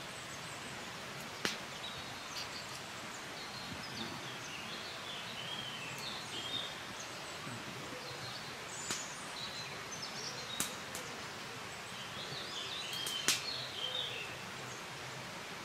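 Forest ambience: small birds chirping on and off over a steady background hiss, with a few sharp snaps or clicks, the loudest about 13 seconds in.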